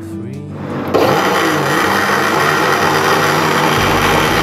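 Countertop blender switched on about a second in, its motor running steadily at speed as it blends milk, Rooh Afza and ice cream into a milkshake.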